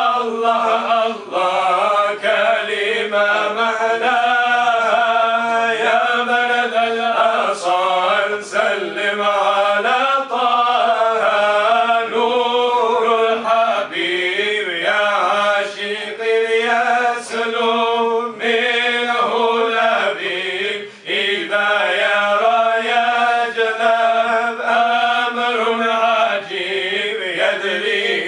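Group of men chanting an Arabic devotional song (inshad) together, the melody rising and falling over a steady held low note.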